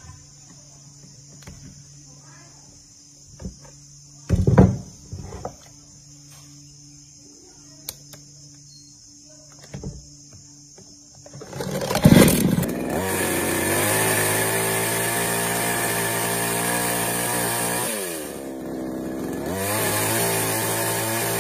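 Handling knocks and clicks on a chainsaw, with one loud knock a few seconds in; then, about eleven seconds in, the restored two-stroke gasoline chainsaw starts and runs at high revs, drops off briefly near the end and revs back up.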